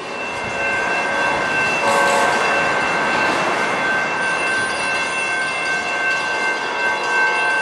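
Amtrak passenger locomotive's air horn holding a steady chord of several notes, sounding from about half a second in and still going at the end, over rail noise.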